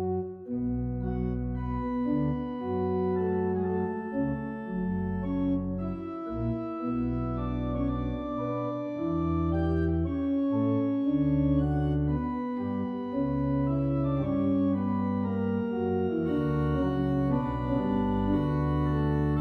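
Organ music: slow, held chords over a bass line that moves from note to note.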